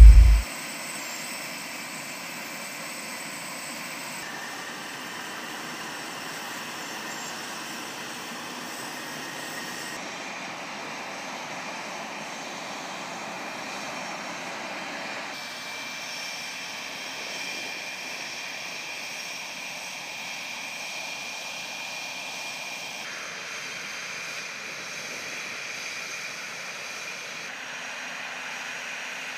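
F/A-18 Hornet jet engines running at idle on the ground: a steady high whine over a hiss. The tone shifts slightly every several seconds.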